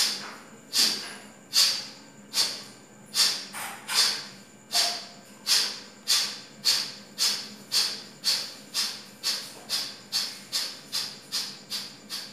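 Kapalabhati breathing: a man's sharp exhalations pushed out through the nose, each with a sudden start and a quick fade. They come a little under a second apart at first and quicken steadily to two or three a second near the end.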